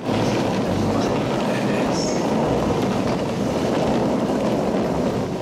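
Train running on the rails: a steady rumble of wheels and car noise.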